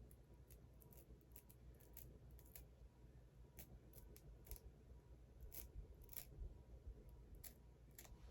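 Faint, irregular snips of scissors cutting the excess lace of a lace front wig.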